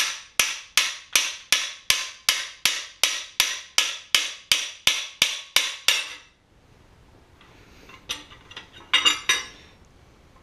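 Hammer tapping the bar of a cam bearing removal tool in a steady rhythm, about three blows a second, driving a cam bearing out of a Ford FE V8 engine block. The blows stop about six seconds in, followed by a few light metal clinks as the tool is handled.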